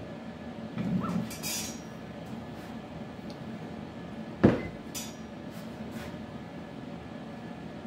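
Light metallic clinks, then one sharp click about halfway through, as hands work at a CNC router's spindle head. A steady low machine hum runs underneath.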